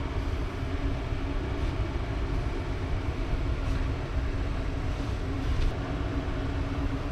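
Steady low rumble with a constant hum, and a few faint light knocks as pillows are moved about on the bed.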